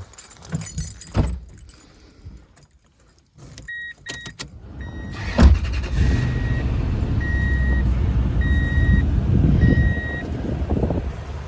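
Toyota Tundra's V8 being started: keys jangle and click, a warning chime beeps, then the engine catches about five seconds in and settles into a steady idle while the chime keeps beeping about once a second.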